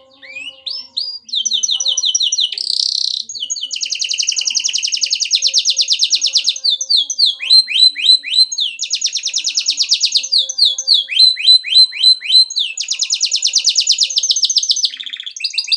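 Domestic canary singing non-stop: long, rapid trills alternating with runs of quick down-slurred whistled notes, high-pitched and loud.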